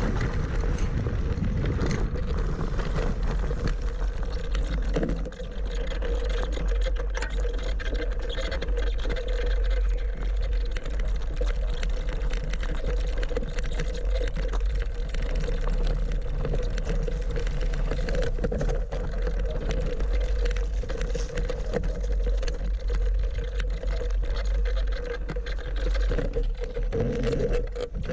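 Qiewa Qpower electric scooter riding over a rough dirt track: a steady whine over a heavy low rumble, with many small knocks and rattles from the bumpy ground.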